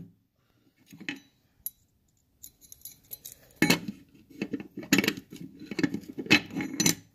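Small metal parts clinking and clattering as they are handled: one click about a second in, then a busy run of sharp clicks and rattles from about two and a half seconds on.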